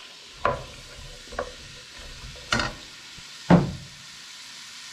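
Diced onion freshly added to hot oil sizzling faintly in a stainless steel pot, while a wooden spoon stirs it with four sharp knocks against the pot, the loudest about three and a half seconds in.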